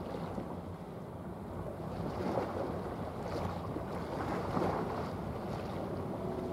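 Waterside ambience: wind on the microphone and water washing, over a steady low hum, swelling louder about two and a half seconds in and again near four and a half seconds.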